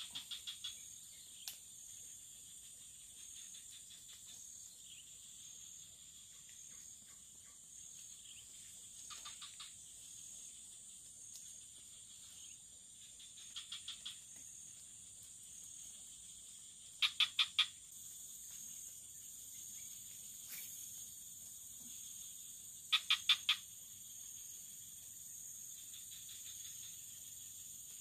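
Steady, high-pitched insect chorus, with a short call of four or five quick pulses repeated every few seconds; the two loudest calls come about two-thirds of the way in.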